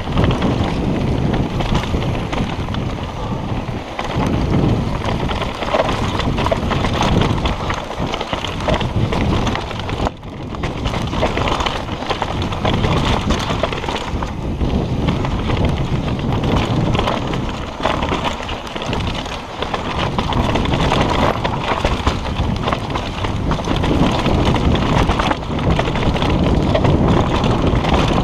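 Mountain bike riding fast down a dry, rocky dirt trail: tyres on loose stones and the bike rattling over bumps, with wind rushing over the microphone.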